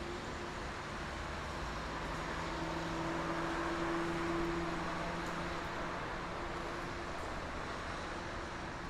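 Steady highway traffic at night: a continuous rush of tyres and engines, with one vehicle's engine hum swelling as it passes, loudest about four seconds in, then fading.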